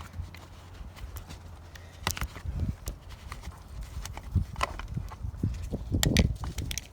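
Irregular knocks and clicks of parts and tools being handled during an oil change, clustered near the end, over a steady low rumble.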